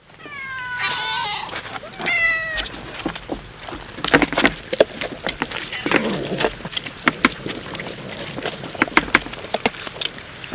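A cat meows twice, the first call longer and falling in pitch. It is followed by irregular sharp clicks and smacks, typical of cats chewing food, here boiled chicken.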